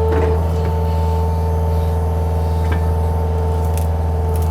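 John Deere mini excavator's diesel engine running steadily under load, a constant drone with a steady whine over it.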